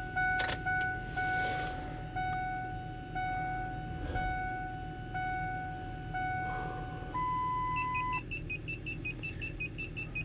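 Ford Excursion dashboard warning chimes with the key on: an evenly repeating chime that stops about seven seconds in, a single steady beep lasting about a second, then rapid beeping at about four or five a second. A couple of clicks come near the start, over a low steady hum.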